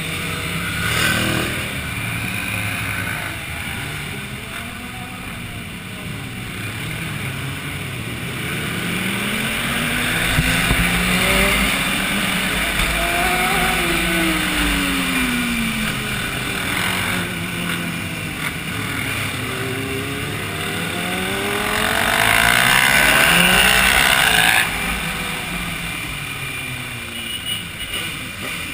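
Several sport motorcycles riding in a group, their engines revving up and down so the pitch rises and falls with throttle and gear changes. Near the end a loud rush of noise swells for a few seconds and cuts off suddenly.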